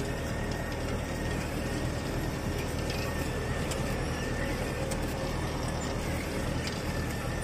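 Mahindra 595 tractor engine running steadily under load, pulling a seed drill through the soil, with the drill's frame and metering parts rattling and a few light clicks.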